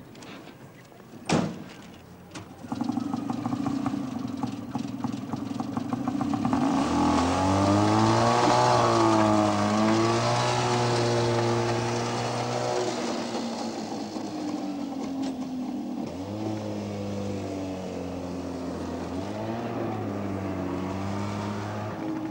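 A sharp knock, then an old vintage car's engine starts and runs, its pitch rising and falling as it revs and the car drives off.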